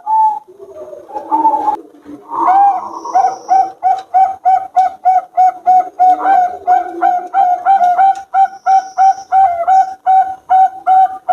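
Zebra doves (perkutut) singing: a long run of short, clear cooing notes, about three or four a second, starting about two seconds in, with deeper, lower coos underneath in the first half.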